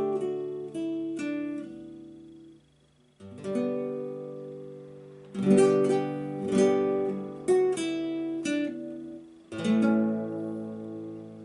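Acoustic guitar strumming chords, each left to ring and fade, with a short pause about three seconds in.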